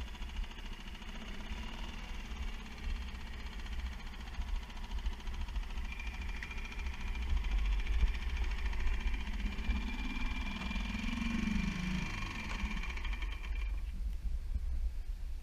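Small Mercury outboard motor on an inflatable dinghy running at low speed, under a heavy rumble of wind on the microphone; its hum stops about fourteen seconds in.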